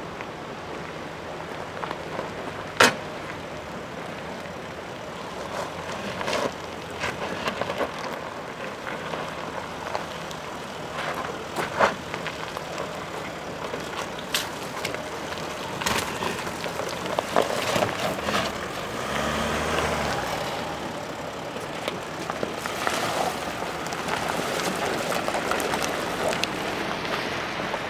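Mercedes GLE SUV crawling slowly over a gravel track: tyres crunching and popping loose stones, with a low, steady engine note underneath. Scattered sharp stone cracks; the loudest comes about three seconds in.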